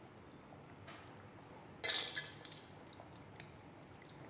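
A stainless steel bowl of ice water being handled: one sharp metallic clink about two seconds in, with a few faint clicks after.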